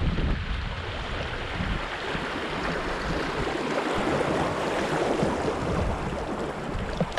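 Rushing and splashing of a shallow creek riffle around a kayak's bow as the boat runs through it, loudest around the middle.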